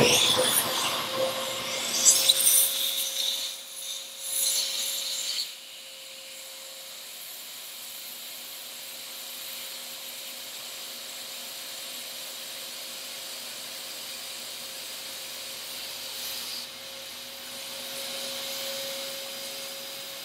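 A small vacuum cleaner is sucking air through the back of an aircraft attitude indicator, spinning up the instrument's air-driven gyro. It starts with a quickly rising whine and a few seconds of loud, rough rushing and rubbing as the nozzle is pressed on. It then settles into a steady whine over an even hiss of air.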